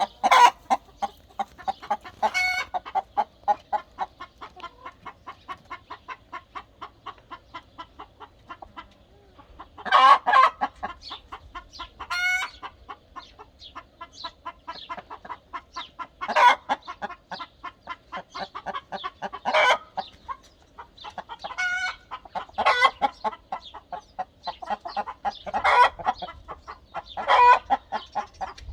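Hen's egg-song after laying: runs of rapid clucks, about five or six a second, each run ending in a louder drawn-out squawk ("po, po, po… pa, pa"), repeated every few seconds, with other hens of the flock calling in answer.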